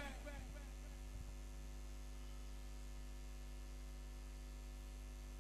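Faint, steady electrical mains hum: a low hum with a ladder of fainter steady tones above it, the kind of hum a microphone and sound system pick up.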